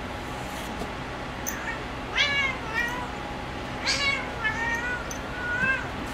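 A domestic cat meowing during rough play with a person's hand: a run of about five short meows starting about two seconds in, most falling in pitch, the first the loudest.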